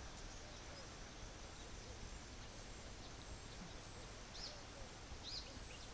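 Quiet outdoor ambience with a low steady hum, and a couple of faint high bird chirps near the end.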